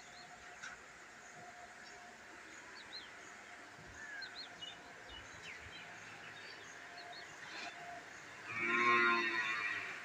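A dairy cow moos once near the end, one long call lasting over a second and the loudest sound here. Faint bird chirps come before it.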